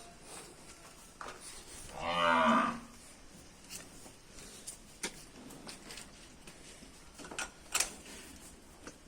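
A cow moos once, a short call about two seconds in, with scattered light clicks and knocks around it.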